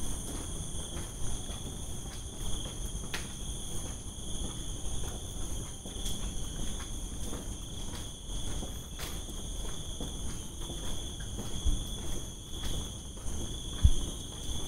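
Crickets chirring steadily in several high-pitched bands without a break, over a low rumble with scattered soft thumps, the loudest thump near the end.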